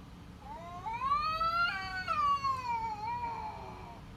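Domestic cat giving one long, drawn-out meow that rises in pitch and then slowly falls away.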